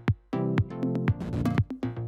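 Background electronic music with a steady drum-machine beat and pitched synth notes.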